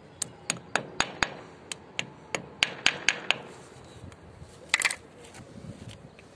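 Steel hammer tapping plastic wall plugs into drilled holes in a concrete ledge: about a dozen quick, sharp strikes, roughly four a second in two runs. About a second and a half after the last strike comes one brief scrape.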